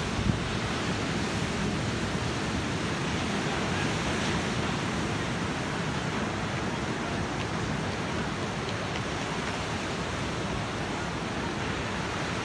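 Ocean surf breaking and washing onto a beach: a steady rush of noise, with a brief thump a moment after the start.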